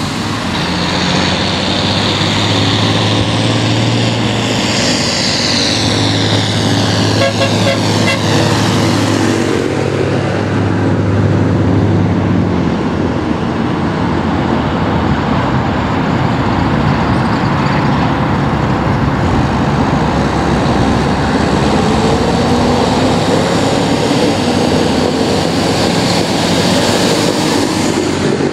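Tractors and cars driving past on a road: a tractor's diesel engine running loud and steady as it passes close in the first dozen seconds, then road traffic noise with another engine slowly rising in pitch as it approaches near the end.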